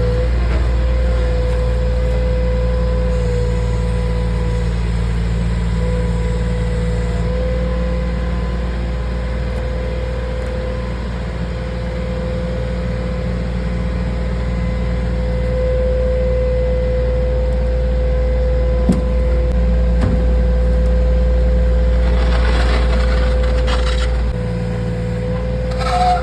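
Skid steer engine running steadily, with a constant hum-like tone over the low rumble. Two short knocks come about two-thirds of the way through.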